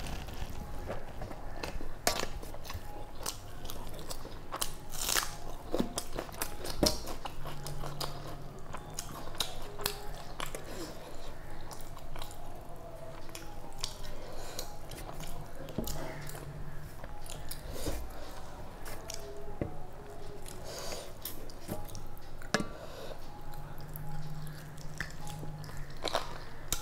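Close-up chewing and wet mouth sounds of a person eating rice and curry by hand, with many small irregular clicks.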